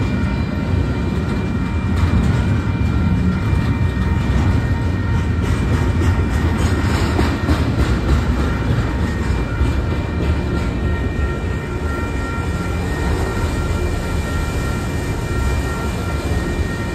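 Freight train cars rolling steadily past at close range: a continuous heavy rumble with wheel clatter on the rails, and thin steady high-pitched tones riding over it.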